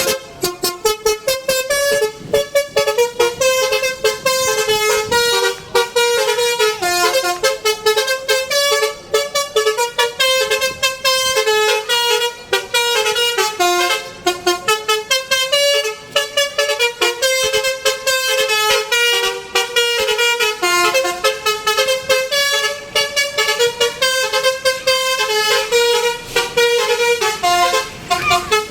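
A bus's Basuri V3 telolet horn, a multi-trumpet electric air horn, playing a continuous melody of quick notes that change several times a second without a break.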